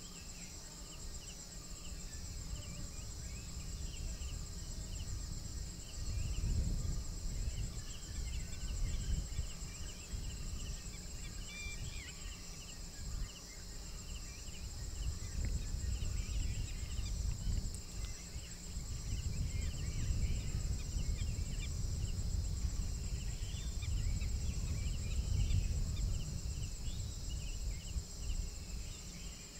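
Night chorus of insects chirring steadily at a high pitch, with scattered short animal calls through it. A low rumble rises and falls under them, loudest from about six to ten seconds in and again from about fifteen to twenty-seven seconds.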